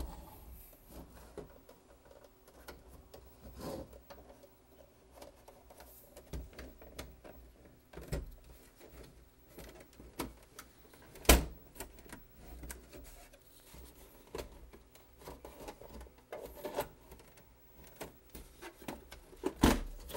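Irregular plastic clicks and knocks as the snap-clipped top casing of a Sylvania SV2000 VCR/DVD combo is pried at to release it, with one sharp, much louder knock about eleven seconds in.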